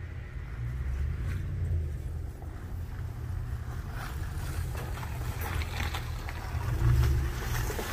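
Ford Super Duty pickup truck with a tailgate salt spreader reversing slowly: a low engine rumble, with crackling from the tires on slush and gravel as it comes close, loudest near the end.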